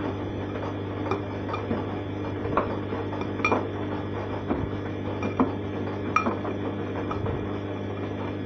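Arçelik 3340 SJ front-loading washing machine in its wash phase, the drum tumbling the wet laundry with a steady motor hum. Irregular sharp clinks sound over it, a few of them louder, about two and a half, three and a half, five and a half and six seconds in.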